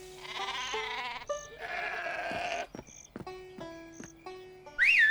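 Cartoon sheep bleating, two drawn-out wavering bleats one after the other, over light background music; near the end a short, loud squeal glides up, down and up again.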